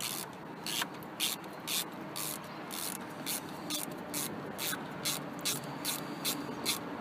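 Socket ratchet being worked back and forth on a worm-drive hose clamp screw, a short rasp of pawl clicks on each back-stroke, about two a second and evenly paced.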